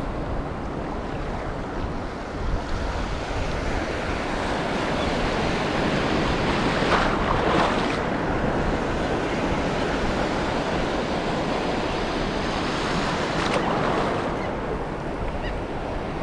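Shallow surf washing around a wading angler's legs, a steady rush of water that swells louder twice as waves pass, about seven seconds in and again near fourteen seconds, with wind buffeting the microphone.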